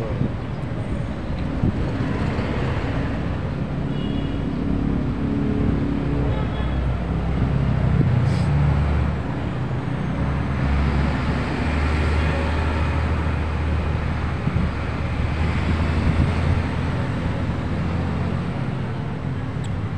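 A motor vehicle engine running close by, a steady low rumble with traffic noise, growing heavier about halfway through.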